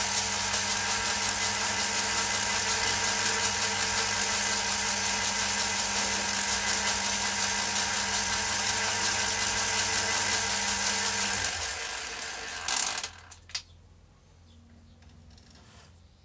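Old metal-turning lathe running steadily, its motor and gearing giving a humming whine, then switched off about two-thirds of the way through and coasting to a stop, with a couple of clunks as it halts.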